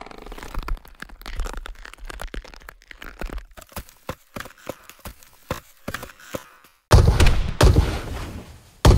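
Designed sound effects of crackling and snapping, like stems and wood creaking under strain, over a low rumble; the cracks thin out into scattered snaps. About seven seconds in a sudden loud burst with a deep rumble breaks in and fades, and another loud burst hits right at the end.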